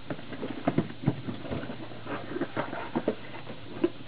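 A cardboard case of carded Matchbox toy cars being opened and handled: irregular taps, knocks and rustles of cardboard and plastic, with two sharper knocks about a second in.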